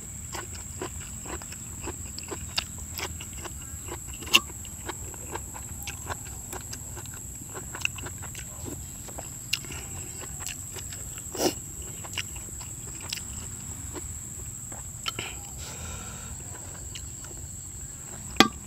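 A person eating: chewing with many short clicks and ticks, among them a metal spoon knocking on the bowls as curry is scooped. A steady high-pitched insect drone, like crickets, runs behind.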